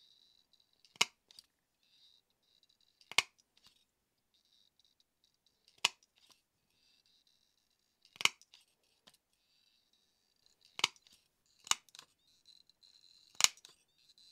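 Revolving leather hole-punch pliers snapping through leather to punch stitch holes, seven sharp clicks spaced one to three seconds apart, with faint handling noise between them.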